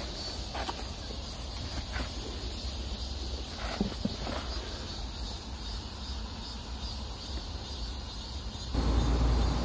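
Outdoor field ambience: a steady high insect chirring over a low background rumble, with a few faint rustles of peanut plants. A louder low rumble comes in near the end.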